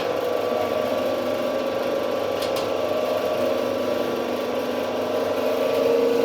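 Five-inch soap plodder running steadily: an electric motor and gear drive giving a constant hum with a steady whine, with a couple of light clicks about two and a half seconds in.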